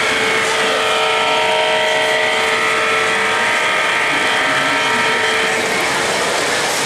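A sound-equipped O-gauge model locomotive blowing its horn: one long, steady multi-note chord that cuts off about five and a half seconds in, over the steady hum and noise of trains running on the layout.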